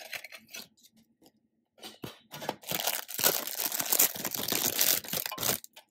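A few light handling clicks, then about three seconds of crackling and rustling of clear plastic wrapping being pulled off a small metal tin.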